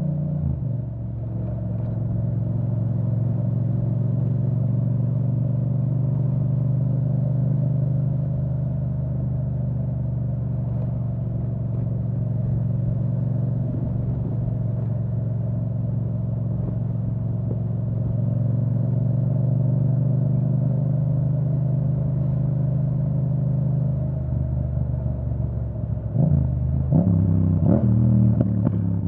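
Yamaha MT-07's parallel-twin engine through an Akrapovic full titanium exhaust with the dB killer removed, heard from the rider's seat. The engine note drops with a gear change about half a second in, then holds steady at a cruise. Near the end it rises and falls quickly several times as the throttle is worked.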